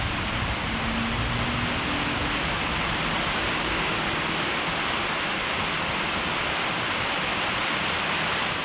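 Paint being sprayed: a steady, even hiss that holds without a break.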